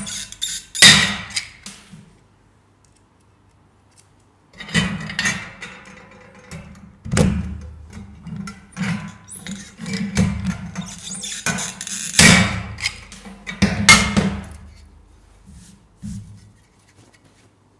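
Irregular metallic knocks and scrapes as a folded sheet-metal strip is squeezed with a pair of hand pliers and handled on a steel bench, with a quiet pause of a couple of seconds early on. Background music plays under it.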